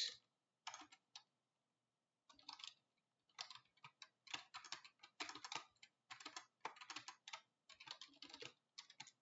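Faint typing on a computer keyboard: a few key clicks, a short pause about a second in, then quick, steady runs of keystrokes.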